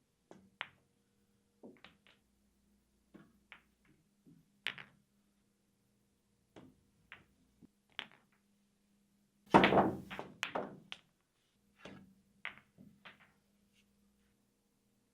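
Pool balls clacking against one another and against the cue, in single sharp knocks every second or so. About halfway through comes a loud rapid cluster of clacks.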